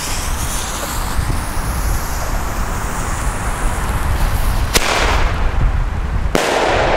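Vogelschreck (bird-scarer) single-shot firework: a shrill whistle rising in pitch as the shell climbs. It is followed by two sharp bangs in the air about a second and a half apart, the second trailing off in a long echo.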